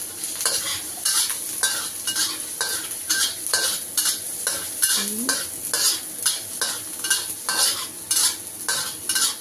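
Garlic and ginger sizzling in hot oil in a wok, with a metal spatula scraping and stirring them about twice a second.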